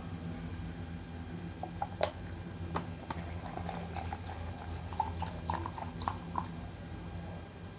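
Water poured from a plastic bottle into a plastic shaker cup, heard as small glugs and splashes with a few light plastic clicks, over a steady low electrical hum.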